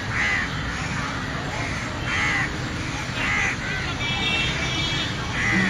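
A crow cawing again and again, about five calls spaced roughly a second apart.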